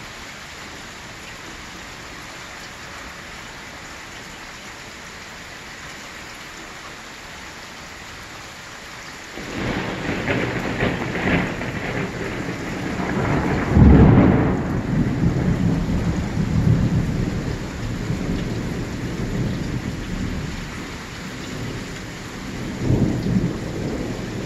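Steady heavy rain, then about nine seconds in loud thunder from a close lightning strike breaks in. It peaks a few seconds later and keeps rolling and rumbling, with another swell near the end, strong enough to shake the house.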